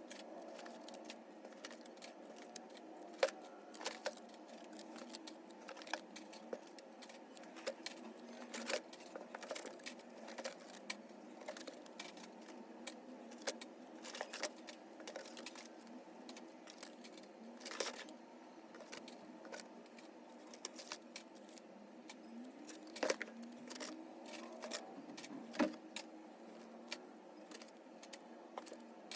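Carded Hot Wheels die-cast cars and their cardboard case being handled and unpacked, with scattered clicks, taps and light rattles and a few louder knocks.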